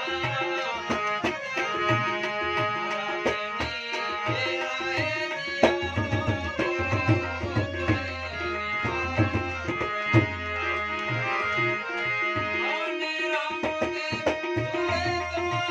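Harmonium playing a melody over tabla accompaniment, with steady sustained reed notes and frequent low drum strokes; an instrumental passage with no singing.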